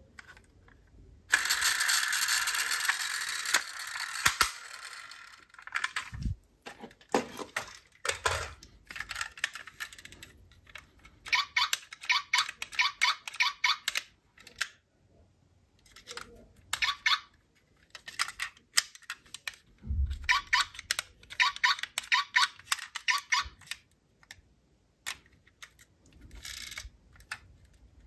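Die-cast toy cars being handled: scattered clicks and clinks of small metal and plastic cars, with two runs of rapid, even clicking, one in the middle and one near the end. A burst of rustling comes about a second in and lasts about three seconds.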